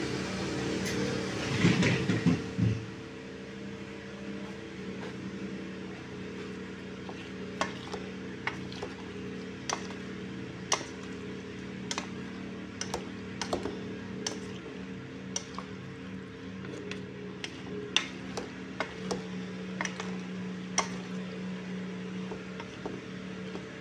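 Two wooden spoons tossing macaroni salad in a metal pot, with many scattered clicks and knocks of the spoons against the pot, over a steady low hum.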